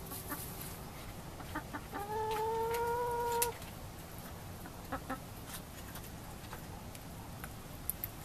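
Domestic hens clucking: a few short clucks, then one drawn-out call lasting about a second and a half that rises slightly in pitch, then two more short clucks.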